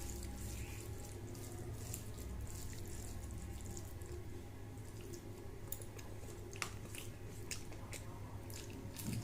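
A person eating rice and fish curry by hand: scattered small wet clicks and smacks over a steady low hum.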